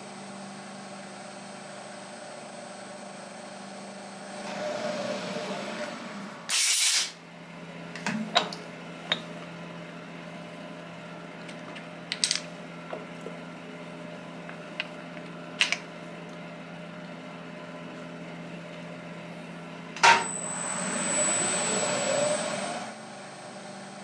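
Milling machine running with a steady whirring hum and high whine, its cutter taking two passes of a few seconds each across the end of a Delrin block, about 4 seconds in and again about 20 seconds in. Between the passes come a loud half-second burst and scattered sharp clicks of the vise and parts being handled.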